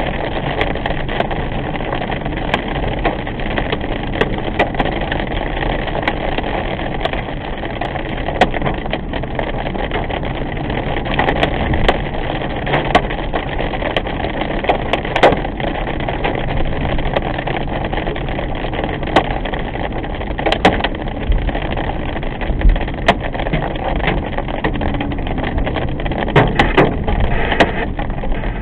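Steady rush of a car's tyres on wet pavement heard from inside the cabin, with scattered sharp ticks of raindrops hitting the windshield.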